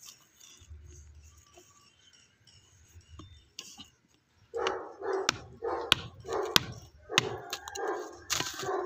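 A dog barking, a run of about seven barks starting about halfway in.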